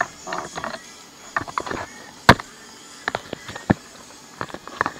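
Irregular sharp clicks and knocks of a laptop and the camera being handled, the loudest a single knock a little past halfway.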